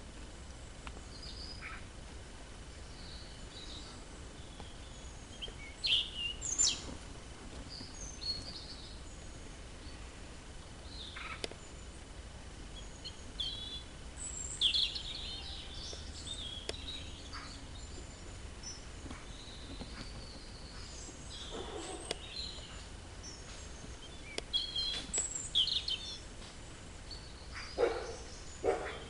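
Small birds chirping and singing now and then over a steady low background hum, with a few short knocks and rattles, the loudest about six seconds in and near the end.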